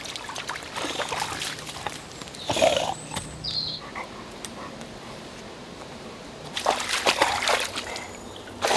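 A boxer dog splashing and wading in a shallow, fast-flowing brook, over the steady trickle of the water. The splashes come in bouts, loudest about two and a half seconds in and again in a cluster near the end.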